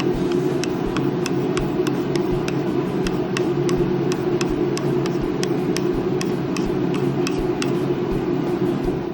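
A diamond plate rubbed over a whetstone to flatten and true its surface: a steady gritty scraping with light clicks about three times a second.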